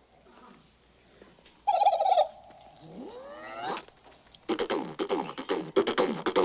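A man making sound effects with his mouth: a short warbling burst, then a rising whistle-like sweep, then a rapid string of short falling zaps and clicks.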